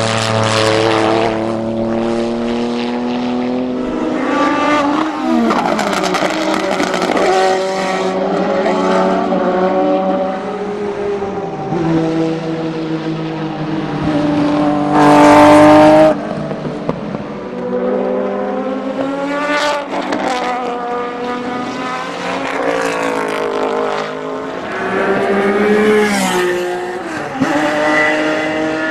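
Historic GT2 racing cars, Porsche 911-based 993 GT2 and 996 GT3 RSR among them, running past one after another at full speed, engines revving up and down through the gears. The loudest pass comes about halfway through.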